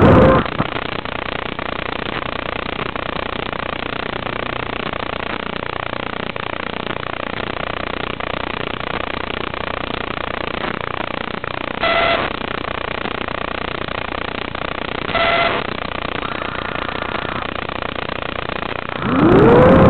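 Steady hiss from a landed FPV quadcopter's audio feed, with two short electronic beeps about 12 and 15 seconds in. Near the end the quad's motors spin up with a whine that rises in pitch and then holds, much louder than the hiss, as it takes off again.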